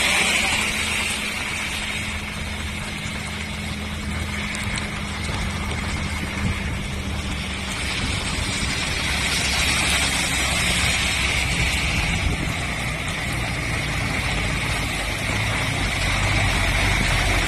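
Vehicle engines running steadily under a constant hiss. Over the last few seconds a heavy Mercedes-Benz truck draws close and its engine grows louder in the low end.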